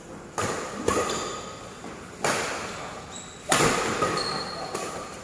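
Badminton rackets hitting a shuttlecock in a doubles rally: five sharp hits, with echo trailing each in a large hall. Between hits come short high squeaks, typical of sports shoes on the court floor.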